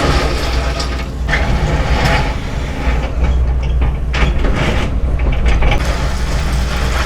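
Excavator diesel engine running steadily under load, with hydraulic surges and scattered clanks and scrapes of the bucket working gravel.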